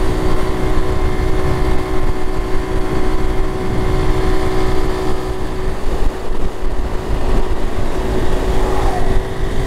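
Honda Pop 110i's small single-cylinder engine running at a steady cruising speed on the open road, its even drone mixed with wind rushing over the microphone.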